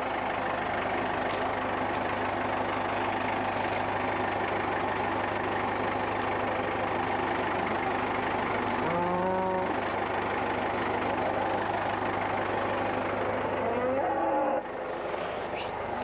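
Farm tractor engine running steadily, with a cow mooing briefly about nine seconds in and again near the end; the engine sound drops a little just before the end.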